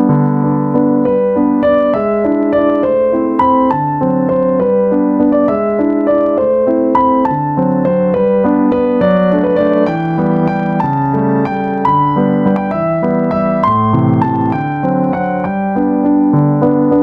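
Background piano music: a gentle melody of sustained notes over a steady accompaniment.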